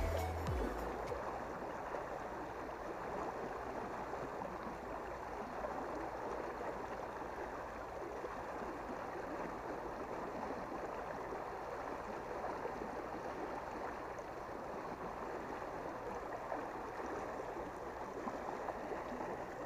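Steady rushing of flowing river water, churning at the bank.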